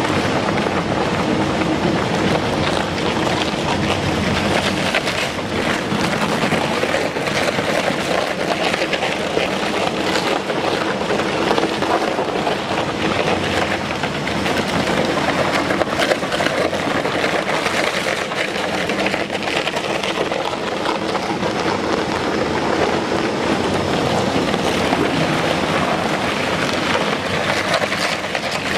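Double-shaft shredder running under load, its counter-rotating blade shafts tearing up large ton bags fed in by a belt conveyor: a steady machine hum under a constant crackle of ripping bag material.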